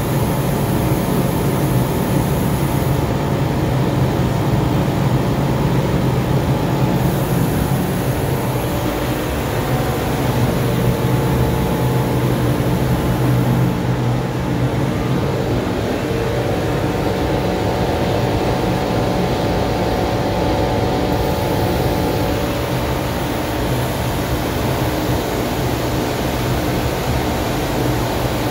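Steady mechanical drone in a powder-coating booth, with the airy hiss of a handheld powder-coating gun spraying. The hiss cuts out twice for a few seconds, about three seconds in and again midway.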